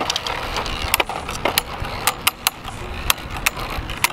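Two Beyblade Burst spinning tops circling on a plastic stadium floor and striking each other again and again: irregular sharp plastic-and-metal clacks, several a second, over a faint whirr of the spinning tops.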